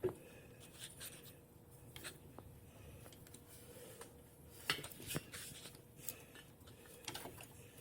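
Faint handling noise: light rubbing with a few short clicks and taps at intervals, over quiet garage room tone.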